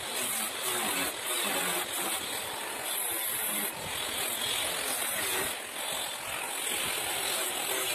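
Angle grinder with a thin cutting disc running and slicing through the corrugated sheet steel of a door panel, a steady, loud grinding noise.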